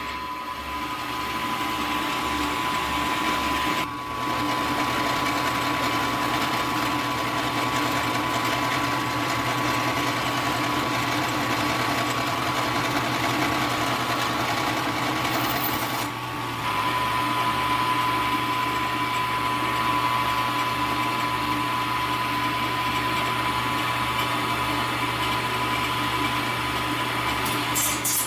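Milling machine running steadily with a high whine while its cutter takes a pass, cutting thin stock down to width. The level dips briefly twice.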